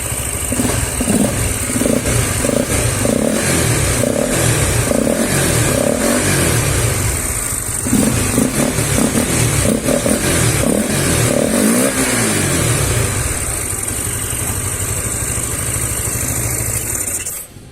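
Honda Supra GTR 150 motorcycle's single-cylinder engine revved in repeated blips, then settling to a steady idle about 13 seconds in. It runs with the air filter cover removed from a UMA Racing air filter, leaving the intake open, which gives it a different intake sound from stock.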